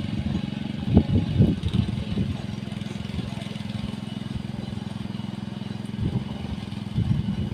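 A small engine running steadily at a constant speed, with a few low thumps about a second in and again near the end.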